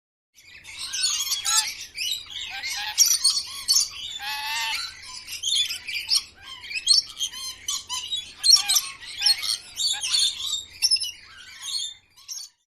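Parrot calling: a long run of quick chirps and squawks, with a longer warbling call about four seconds in.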